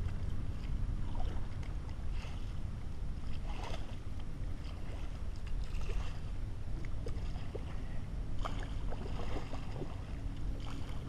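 Double-bladed kayak paddle dipping and splashing in lake water, a stroke about every second or so, over a steady low rumble.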